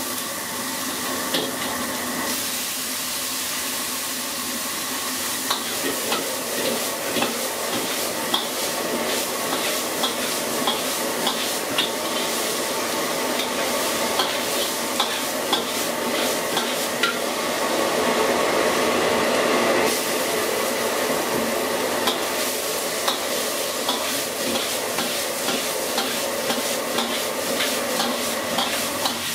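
Chopped vegetables stir-fried in a wok over a high gas flame: steady sizzling, with a metal ladle scraping and clacking against the wok about once a second.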